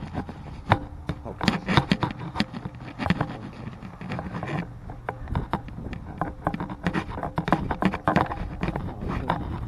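Irregular clicks and knocks of handling noise, over a low rumble: a handheld camera knocking and rubbing against a plastic Nerf blaster while the player walks.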